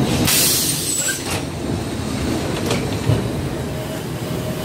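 City bus running, heard from inside: a steady low rumble of engine and road, with a loud hiss lasting about a second near the start.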